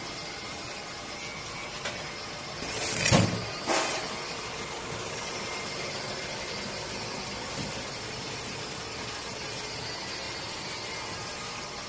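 Automatic biscuit-forming machine running with a steady mechanical hum. About three seconds in there is a brief louder burst of noise, and a shorter one just under a second later.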